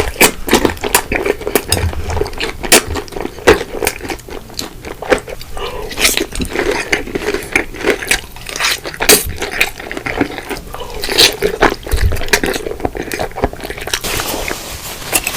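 Close-miked biting and chewing of crispy fried chicken, with many irregular crunches and wet mouth sounds.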